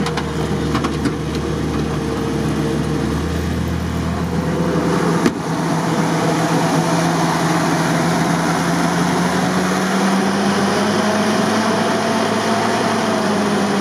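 UAZ 469's four-cylinder petrol engine running at a raised idle, revving on its own; the men suspect a stuck choke. A sharp click about five seconds in, after which the engine runs louder, its pitch creeping up slightly near the end.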